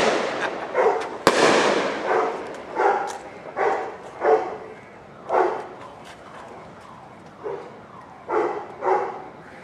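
A firework bang about a second in, trailing off in a fading hiss, then a dog barking over and over in short barks, roughly one a second.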